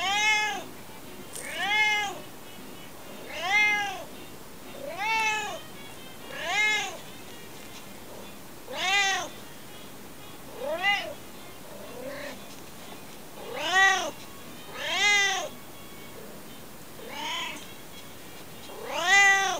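Domestic cat meowing over and over, about a dozen meows a second or two apart, each call rising and then falling in pitch, a few of them quieter.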